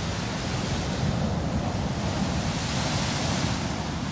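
Ocean surf washing on the shore, a wash of hiss swelling about three seconds in, with wind rumbling on the microphone.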